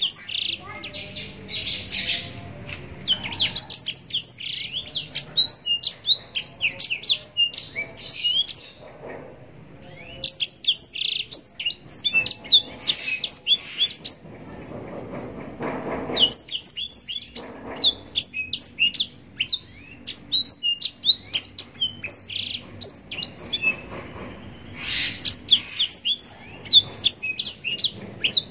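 Black-throated canary (blackthroat) singing long, fast strings of high, quickly falling chirps, broken by short pauses a few times.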